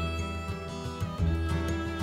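Instrumental background music with guitar, sustained notes over a steady bass.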